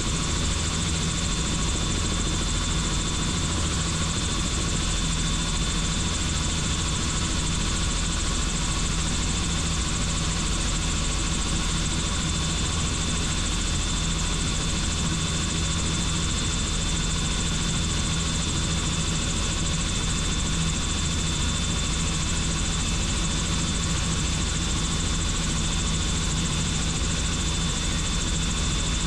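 Helicopter in flight: the steady, unchanging drone of rotor and engine, with a thin high whine held throughout.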